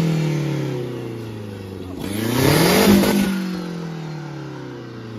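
Turbocharged truck diesel engine being revved twice from the engine bay: each time its pitch climbs for about a second, then falls back slowly as the revs drop, with a hiss riding on the peaks.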